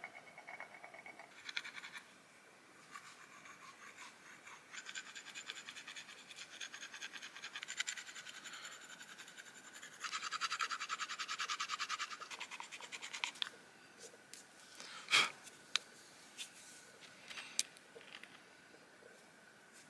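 Stone being abraded by hand: a small piece is rubbed back and forth against a round, flat stone in fast, even, scratchy strokes that grow louder about halfway through and stop a few seconds before the end. A few sharp clicks follow.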